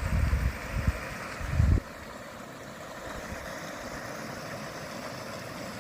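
Wind buffeting the microphone in low, uneven rumbling gusts that stop suddenly about two seconds in, leaving a steady rushing noise.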